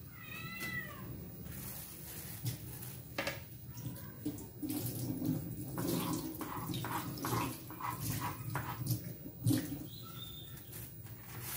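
A domestic cat meowing once about half a second in, with another short high call near the end, amid scattered clicks and knocks.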